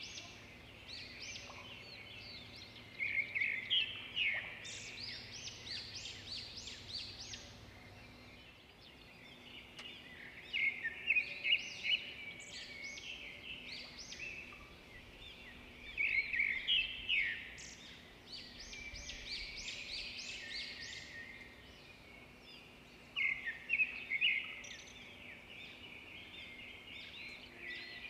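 Birds chirping and twittering, in dense bursts of song every six or seven seconds with scattered chirps between.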